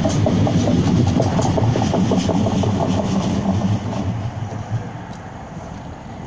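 CAF Urbos 3 tram running past close by and pulling away along the track: a low rumble of wheels on rails with a run of quick clicks, fading after about four seconds.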